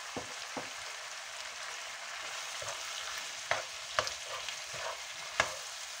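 Chunks of pork loin, onion and mushrooms sizzling steadily in a large frying pan while a wooden spoon stirs them, scraping and knocking against the pan several times, loudest about three and a half and five and a half seconds in.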